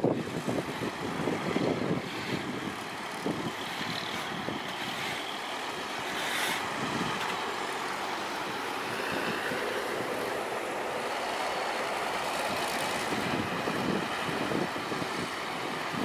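Heavy trucks running by in a steady wash of engine and tyre noise, with gusts of wind on the microphone in the first couple of seconds.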